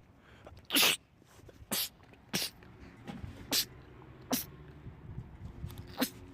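A man sneezing in a rapid fit: six sharp sneezes about a second apart.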